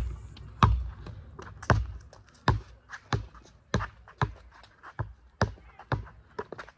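Basketball dribbled on a hard outdoor court: a string of sharp bounces, about two a second, with lighter taps between, getting softer toward the end.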